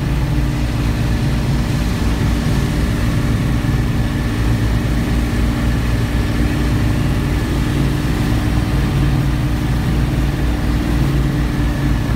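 A large engine running steadily, a low even drone with a hiss of noise over it.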